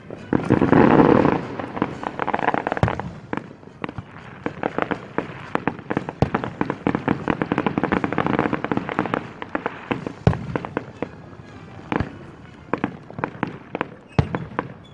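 Fireworks going off at a distance: a rapid run of sharp pops and bangs, densest about a second in and again around eight seconds in.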